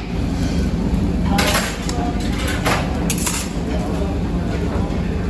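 Dishes and metal utensils clattering over a steady low hum, with a few louder bursts of clatter in the middle.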